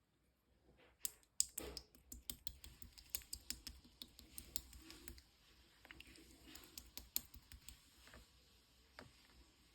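Clear slime worked by hand, giving many quick sticky clicks and pops that start about a second in, come thick and fast for a few seconds, then thin out.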